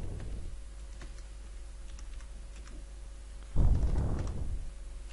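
Computer keyboard typing: faint, scattered key clicks. About three and a half seconds in, a louder, muffled rush of noise lasts about a second.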